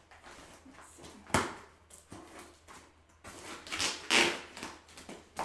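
Scissors cutting the packing tape on a cardboard shipping box: a sharp click about a second in, then longer scraping and rustling of tape and cardboard around four seconds in, with one more short scrape near the end.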